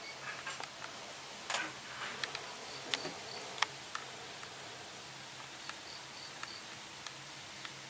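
Outdoor rural ambience of insects: a steady high hiss with a short run of high chirps about every three seconds. Scattered sharp clicks and ticks sit over it.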